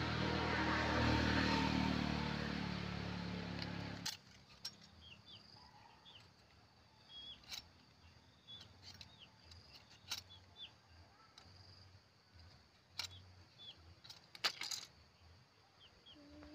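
A steady rumbling noise that cuts off suddenly about four seconds in, followed by scattered small clicks and taps from hands handling a grafting knife and plastic wrap, with faint short bird chirps behind.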